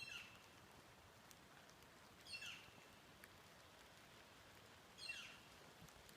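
Bird calling three times, a short call dropping quickly in pitch, repeated about every two and a half seconds.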